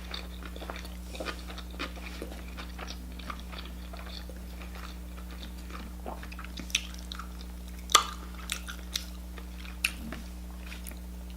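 Close-miked chewing of a shrimp sushi roll: soft, wet mouth clicks and smacks scattered throughout, with a louder smack about eight seconds in.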